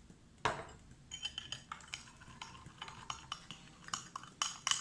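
Spoon clinking and scraping against a bowl of scrub mixture, a series of light, irregular clicks after a single soft knock about half a second in.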